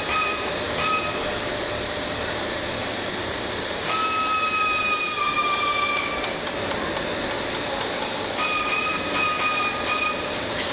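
Steady machine hiss from tyre-repair equipment, with a high whine that comes in and drops out three times, dipping slightly in pitch the second time.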